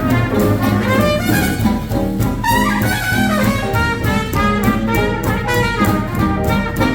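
Hot jazz band in 1920s–30s swing style playing an instrumental chorus, a brass horn such as a trumpet carrying the lead line. About two and a half seconds in, the lead plays a quick falling run.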